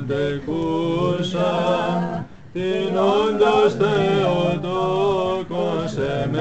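Orthodox chant: voices sing long, slowly gliding notes over a steady low drone, with a short pause a little over two seconds in.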